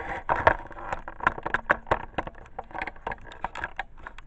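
Handling noise: a rapid, irregular run of rustles, clicks and knocks as the camera is moved about and set down close over a cotton t-shirt, thinning out near the end.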